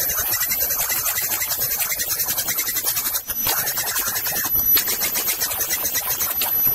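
Eight-spindle rotary CNC router roughing: the spindles cut the turning workpieces with a harsh, rasping noise that flutters rapidly, over a thin high whine. It drops out briefly about three seconds in.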